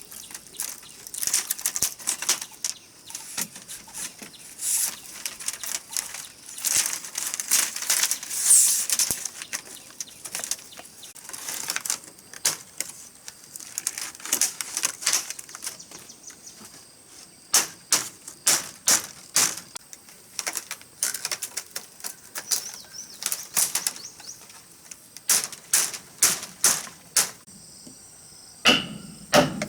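Crisp rustling and crackling with many irregular sharp clicks, as of dry material being handled or worked.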